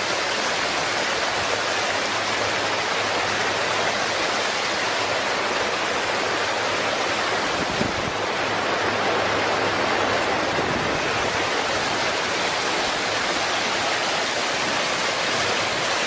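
Fast-moving floodwater rushing in a steady, loud wash of noise, with one brief low thump about eight seconds in.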